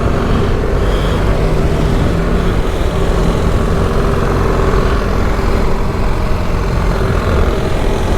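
BMW GS boxer-twin engine running hard on track, with wind rushing over the microphone at speed; the engine note rises near the end as the rider accelerates.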